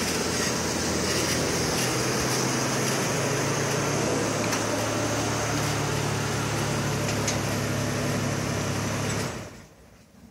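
1956 Chevrolet pickup's engine running steadily on its first run, then stopping abruptly near the end.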